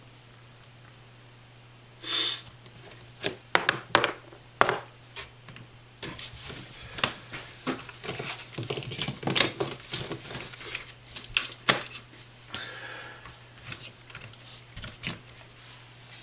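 Scattered clicks and light taps of small metal RC-truck parts and hand tools being handled on a workbench, with a couple of brief rustles, over a low steady hum.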